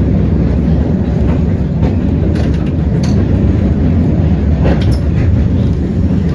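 Heritage electric tram running along its street track, heard from inside the wooden cabin: a steady low rumble of motor and steel wheels on rail, with a few light clicks.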